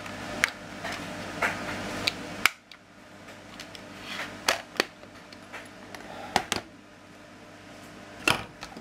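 Scattered sharp clicks and knocks, about nine in all, from a screwdriver and the stock of a Hatsan Gladius PCP air rifle being handled while the stock screws are undone. A low hum cuts off suddenly about two and a half seconds in.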